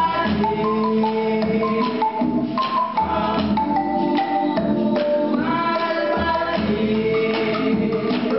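A song with several voices singing together over steady percussion.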